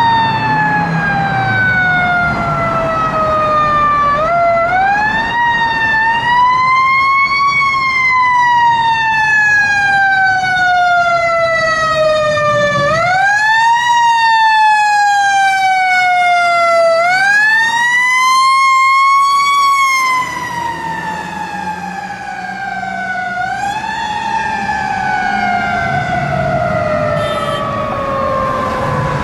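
Fire truck siren wailing. Its pitch rises quickly and then slides slowly down, four times over, and it becomes a little quieter in the last third.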